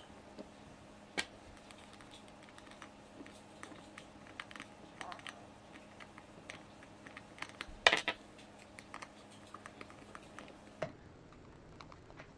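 Scattered light clicks and taps of hand work with a screwdriver and small machine screws on a plastic headset, with a louder clatter about eight seconds in.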